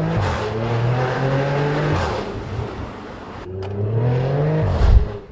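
Porsche Macan S twin-turbo V6 through an aftermarket Valvetronic Designs exhaust, accelerating hard with a rising pitch, holding steady, easing off, then building again. A loud low thump comes near the end.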